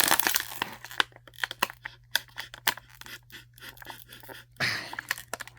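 A cheap stainless-steel folding knife blade being worked through material, giving irregular crackling, tearing and crunching clicks with a scratchier stretch near the end. It is not cutting cleanly because the blade is not that sharp.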